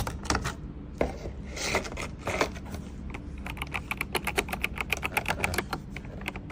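Typing on an Aigo Darkflash GD100 mechanical keyboard: a few scattered key clicks, then a fast run of keystrokes from about three seconds in.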